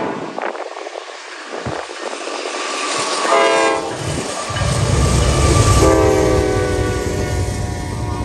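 Air horn of the lead Norfolk Southern Dash 9-44CW freight locomotive: a short blast about three seconds in, then a longer blast from about six seconds in. From about four and a half seconds in, the deep rumble of the passing GE diesel locomotives joins it.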